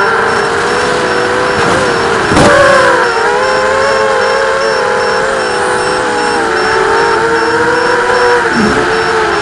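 Whine of a 250-size FPV racing quadcopter's brushless motors and propellers heard from the onboard camera, several close pitches rising and falling together with the throttle. A sharp surge in pitch and loudness about two and a half seconds in marks a hard punch of throttle.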